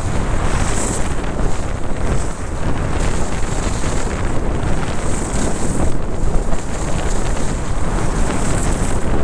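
Wind buffeting the camera microphone on a fast downhill ski run: a steady, loud rumbling rush. Over it, skis hiss over packed snow, the hiss swelling and fading every few seconds.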